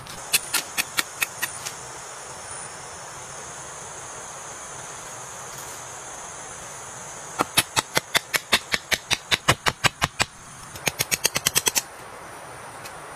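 Repeated sharp knocks of a hand tool hacking at the ground or roots, in three runs: a short run at the start, a longer run of about five strikes a second from about seven seconds in, and a quicker burst near the end. Under them runs a steady high insect drone.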